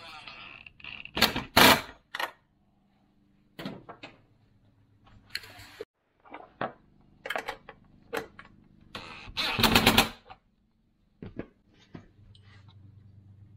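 DeWalt 20-volt cordless driver running in short rattling bursts, tightening nuts onto bolts to fasten Z mounting brackets to a solar panel's aluminium frame. The two longest and loudest bursts come about a second and a half in and about ten seconds in, with shorter spins and small metal clicks between them.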